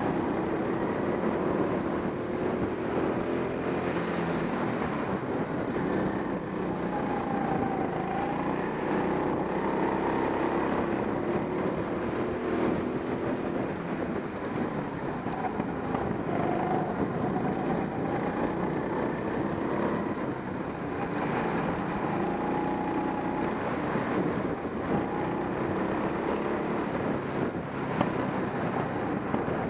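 Onboard sound of a racing go-kart at speed. The engine runs continuously, its pitch rising and falling again and again as it accelerates down the straights and eases through the corners.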